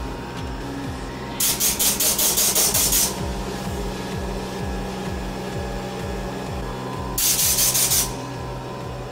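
Haas CNC vertical mill running its spindle while an end mill face-mills an aluminium plate under flood coolant, a steady machine hum with a couple of held tones. A harsh, fast-pulsing hiss of cutting comes in twice, about a second and a half in and again near the end.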